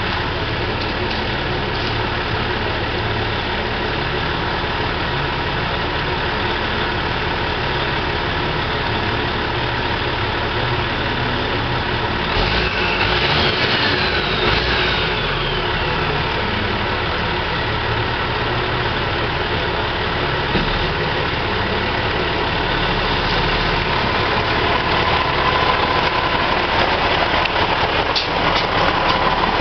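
Engine idling steadily: the engine started to build air pressure for a set of metal train horns. A faint rising-then-falling tone glides over it about halfway through.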